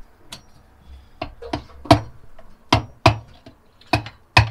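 Hammer tapping a screwdriver into the steel base of a Fleetguard LF670 spin-on oil filter to punch a drain hole: about eight sharp metallic knocks, irregularly spaced, the strikes getting harder after the first two seconds.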